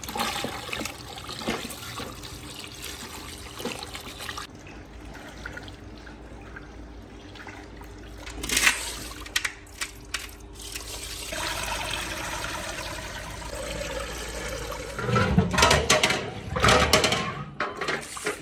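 Water running and splashing in a galvanised metal tub as chunks of beef are washed by hand, then the bloody water is tipped out of the tub. Near the end come several loud knocks as the meat and the tub are handled.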